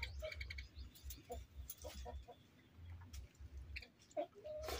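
Faint sounds of eating by hand from steel plates: fingers working rice against the metal, with small clicks and taps. A few short bird calls sound in the background.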